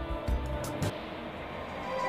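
Background music, quiet at first, with a couple of faint knocks. It swells near the end as held, steady notes come in.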